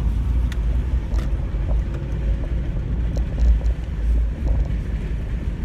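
Car driving, heard from inside the cabin: a steady low road-and-engine rumble.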